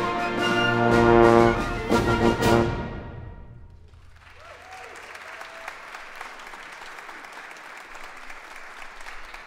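A school concert band's brass and percussion playing the final loud sustained chords of a piece, with drum and cymbal hits, ending about three seconds in; audience applause follows.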